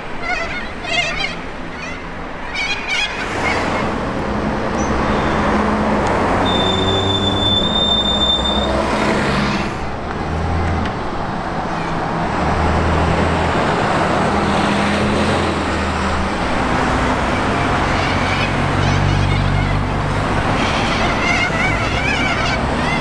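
Route buses driving past on a street, their engine noise swelling and fading as each goes by, over traffic noise. Geese honk at the start and again near the end, and a brief high squeal sounds about seven seconds in.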